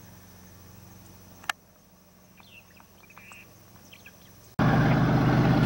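Faint bird chirps over a low steady hum, with a single click about a second and a half in. Near the end the sound cuts abruptly to a loud, steady, deep rumble of a diesel locomotive engine.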